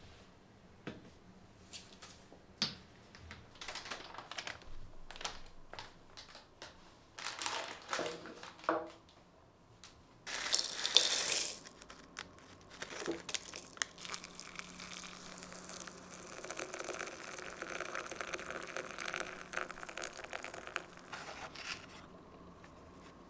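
Plastic food packaging being handled: crinkling and tearing of packets, with scattered clicks. About ten seconds in, a loud rustle comes as a packet's dried contents are shaken out into a bowl. Later a steadier rustling hiss runs for several seconds.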